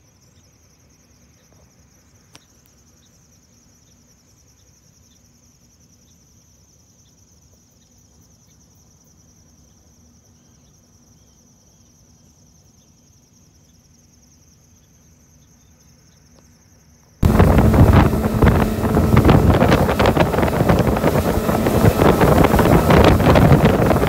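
Faint, steady high-pitched insect chirring over a quiet background with a low hum. About seventeen seconds in, it cuts suddenly to a boat running fast over the water, with heavy wind buffeting the microphone.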